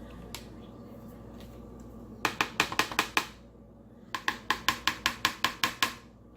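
Two runs of quick, sharp taps, about five a second: a small hard object knocked repeatedly on a hard surface, the first run brief and the second longer.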